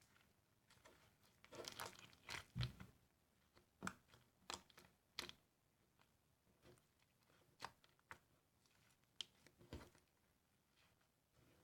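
Jelly slime with styrofoam beads being squeezed and pressed, giving irregular crackles and sticky pops. There is a dense cluster about two seconds in, then single pops roughly every second.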